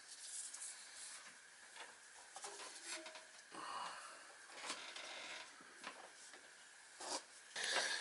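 Faint rustling, rubbing and light clicks of a gloved hand handling a clamp meter and its test leads among the furnace wiring, with a louder scrape near the end, over a faint steady high-pitched tone.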